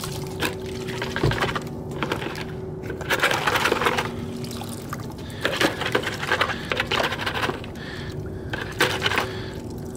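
A starter motor's stator housing being scrubbed by hand in a bucket of cleaning solvent: irregular sloshing and splashing of the liquid, with a few sharp knocks of the metal part against the bucket. A faint steady hum runs underneath.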